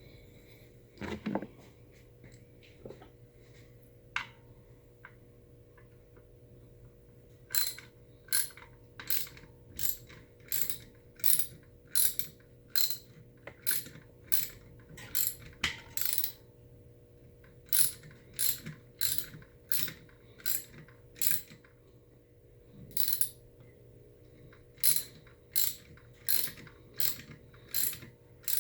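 Hand ratchet wrench clicking in short back-and-forth strokes, about two a second, as the through-bolts of a reassembled electric motor are tightened down; it starts about a quarter of the way in and goes in runs with a few short pauses.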